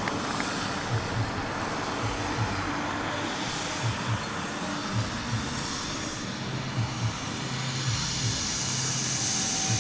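Model jet turbines of a radio-controlled MD-11 running at low taxi power as the model rolls along the runway after landing: a steady rushing sound with a thin, high, steady whine.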